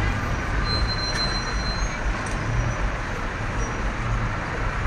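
Busy city street traffic: engines of a bus and cars running in a steady rumble, with a brief thin high whine about a second in.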